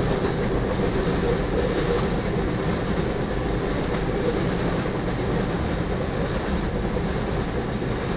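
Freight train's boxcars and covered hoppers rolling past on the rails, a steady, even rumble and rattle of steel wheels.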